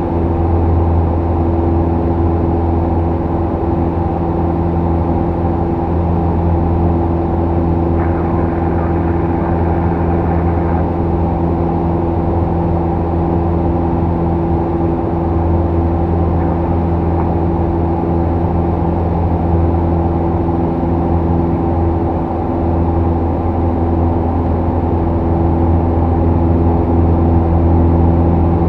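Single-engine light airplane's piston engine and propeller running steadily in flight, a loud even drone heard inside the cockpit.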